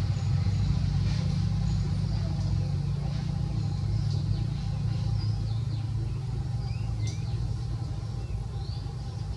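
A motor vehicle's engine running steadily with a low rumble, easing off a little near the end, with a few short bird chirps over it.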